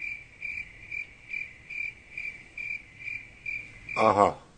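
Cricket chirping, added as a sound effect: evenly spaced high chirps about two and a half times a second, the stock 'crickets' gag for an awkward silence. They stop about four seconds in, where a man says a short 'aha'.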